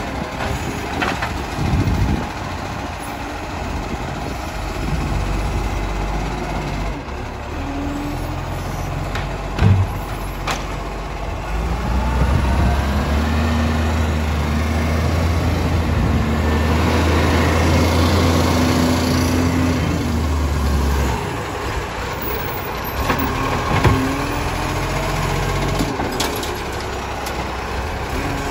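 Iveco Acco side-loader garbage truck's diesel engine running as the truck moves along the street, with a steady low drone for several seconds in the middle and two short sharp sounds, one about ten seconds in and one about 24 seconds in. Near the end the truck's hydraulic arm is lifting a wheelie bin.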